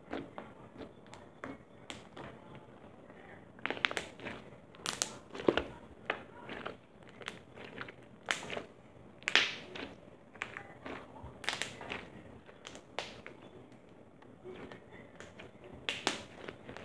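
Slime being squeezed and worked by hand, making irregular sharp pops, clicks and crackles, with the loudest snaps about five and nine seconds in.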